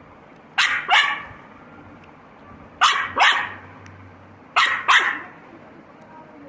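Dog barking: three quick double barks, about two seconds apart.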